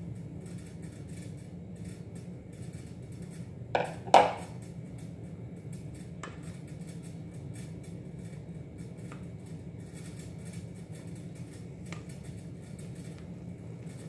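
A plastic spatula stirring flour into liquid batter in a stainless steel mixing bowl, with light clinks against the bowl. Two sharp knocks of bowls come about four seconds in, the loudest sounds, over a steady low hum.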